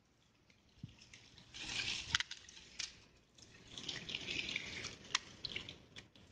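Shallow water splashing and dripping in two short spells as a hand reaches in among reeds and grass stalks, with a few sharp clicks.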